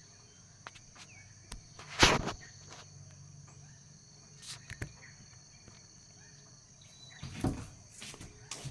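Steady high-pitched chirring of crickets in the background. A loud knock about two seconds in and a few softer clicks and rustles later, from the phone being handled and set down.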